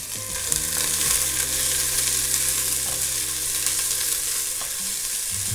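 Chopped onion and leek sizzling steadily in olive oil in a stainless-steel stockpot as they are stirred: the start of a refogado, the vegetables sweating gently.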